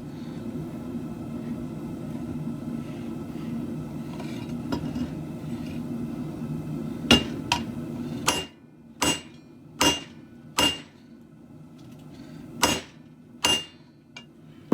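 Steady low rush of a propane forge burner, which stops about eight seconds in. From about seven seconds on come about eight sharp hammer blows on steel at the anvil, each with a bright metallic ring, spaced under a second apart with one short pause.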